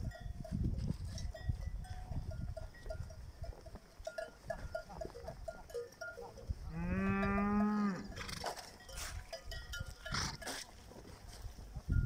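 Animal bells clinking irregularly among grazing livestock, with one cow mooing for a little over a second past the middle.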